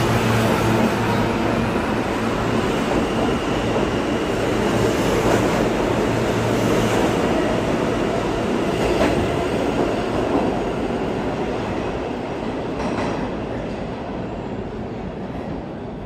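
R160 subway train pulling out of the station and running past: a steady motor hum over the wheel rumble for the first half, then a few clacks of wheels over rail joints as the sound fades away with the departing train.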